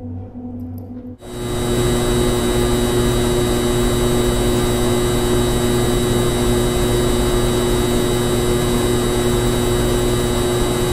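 A loud, steady machine-like whir with a constant hum under it, starting abruptly about a second in.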